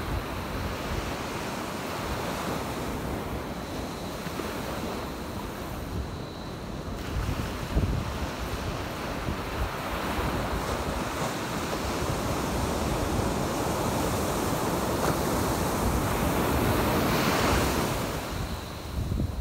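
Small surf waves breaking and washing up a sandy beach, with wind buffeting the microphone. The surf swells louder toward the end, then drops away.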